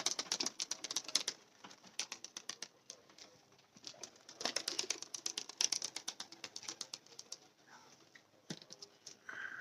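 Pigeons making quick runs of sharp clicks and taps, in several bursts of a second or more, the longest a few seconds past the middle.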